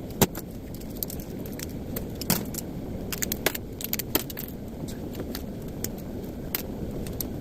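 Small brass switch contacts and scrap bits clinking together as they are handled and sorted, a string of irregular sharp metallic clicks.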